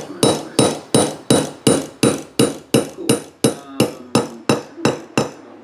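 Hammer blows on a small steel part of a Stanley plane's cap iron (its thumb lock) held in pliers on a steel block, metal on metal. About sixteen evenly spaced strikes, roughly three a second, each ringing briefly. They stop just before the end.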